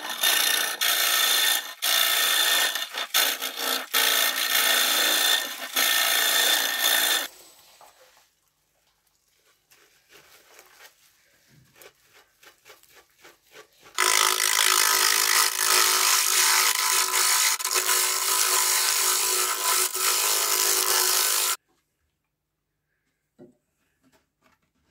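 Hollowing tool cutting and scraping inside a large alder form spinning on a wood lathe, a loud rasping noise with brief breaks, stopping about seven seconds in. After a quiet stretch of light handling clicks, a loud steady rushing noise starts suddenly about halfway through and cuts off just as suddenly some seven seconds later.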